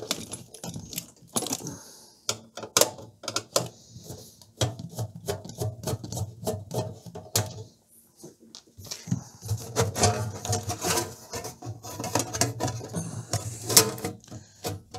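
Screws being undone from the sheet-metal case of a Pioneer A-119 stereo amplifier with a screwdriver: many sharp metallic clicks and rattles, with two longer busy stretches of turning and scraping, and a loud click near the end as the lid is gripped.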